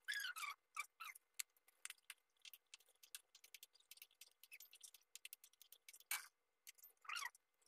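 Thick kare-kare peanut sauce simmering in a pan on a gas burner, bubbles popping in faint, irregular clicks and ticks, with a few brief falling squeaks.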